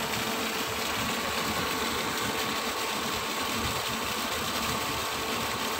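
A ship's engine running with a steady, even hum.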